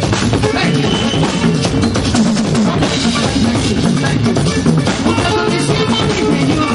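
Live band music with a steady drum-kit beat and a bass line, played loud.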